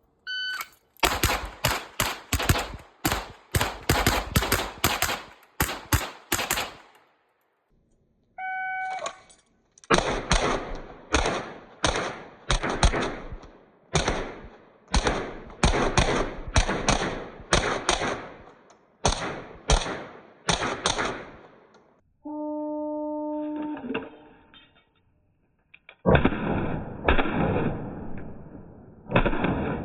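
Rapid strings of pistol shots from a CZ Shadow 2, each string started by a shot timer's electronic beep. There are three strings, each beginning within a second or two of its beep: about a dozen quick shots in the first seven seconds, a longer run of shots from about ten to twenty-one seconds, and a third string near the end.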